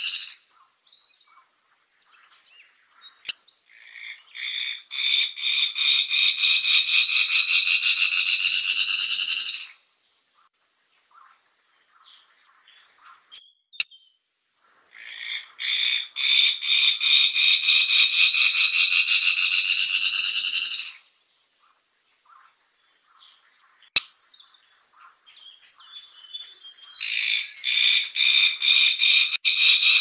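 Fire-tufted barbet (takur api) calling: long buzzing trills of rapid repeated strokes, each lasting several seconds. One swells from about 3 s to 10 s, one runs from about 15 s to 21 s, and one builds again from about 25 s to the end, with short scattered notes between them.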